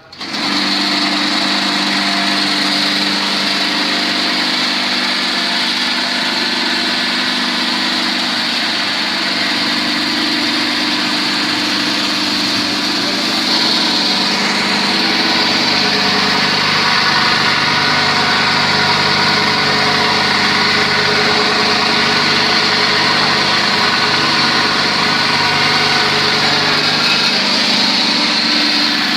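Motor-driven onion grinding machine switched on, coming straight up to a loud, steady run with a high whine, grinding onions.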